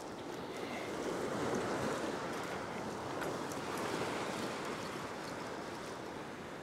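Ocean swell washing against a rock shelf: a steady rush of surf that swells louder about a second and a half in and again around four seconds.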